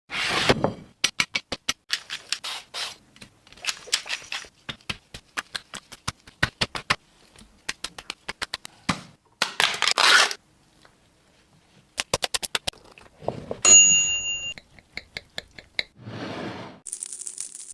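Food-preparation sounds in quick succession: sharp clicks, scraping and crackling, with a short steady electronic tone about 14 seconds in.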